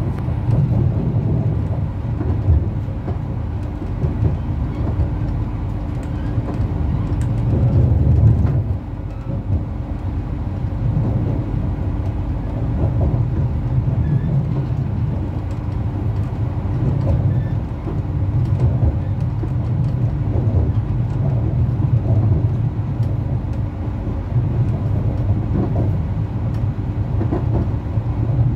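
Interior running noise of a Bombardier AGC B82500 regional train rolling along at speed: a steady low rumble from the running gear, with scattered light knocks. A steady hum stops about eight seconds in, just after a brief swell in loudness.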